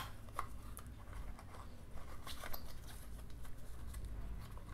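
Small white cardboard box handled and opened by gloved hands: a sharp tap right at the start, then light scattered rustling, scraping and clicks of the card.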